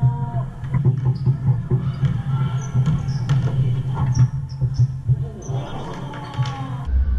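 Pickup basketball on a hardwood gym floor: many short, high sneaker squeaks, the ball bouncing, and indistinct calls from the players, over a steady low hum.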